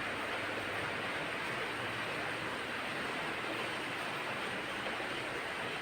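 Heavy rain pouring down hard in a steady downpour, an even hiss.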